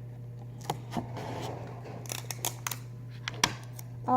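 Scattered light clicks and a short rustle of tape and plastic sheet being handled and pressed onto a cardboard box, over a steady low hum.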